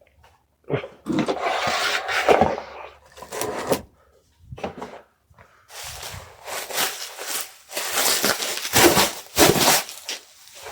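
Packaging being handled by hand: irregular rustling and scraping in bursts, with a few sharp knocks and short pauses between them.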